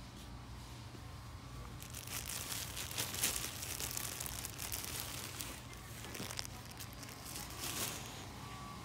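Plastic bread bag crinkling as a loaf is handled and put into a cart, loudest about three seconds in and again near the end, over a low steady hum.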